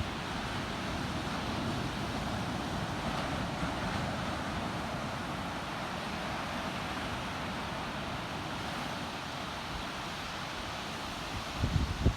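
Ocean surf breaking in a steady wash, with wind on the microphone; a couple of low gusts buffet the microphone near the end.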